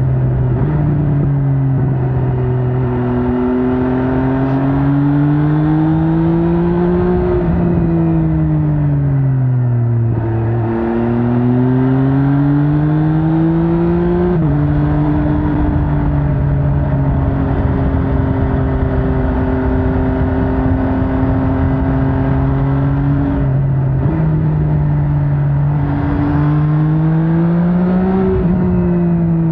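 MV Agusta Brutale 800's three-cylinder engine under a rider's changing throttle: the revs climb, fall away when the throttle is rolled off, climb again and drop in a step at an upshift, then hold steady at a cruise before rising and falling once more near the end.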